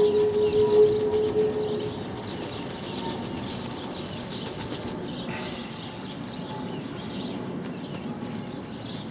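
Birds chirping in the background. In the first two seconds a steady mid-pitched tone is the loudest sound, then it stops.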